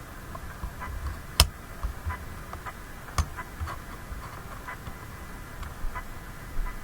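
Philco 91A tube radio running, its speaker giving irregular crackles and pops of static, with a sharp loud click about a second and a half in and another about three seconds in.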